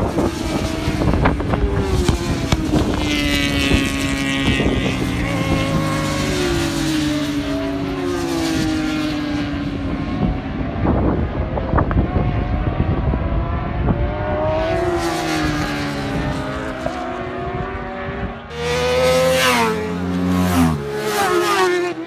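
Racing sportbike engines at full speed on a road course, revving hard, their pitch climbing and dropping again and again through gear changes as the bikes pass. The bikes are loudest about three-quarters of the way through.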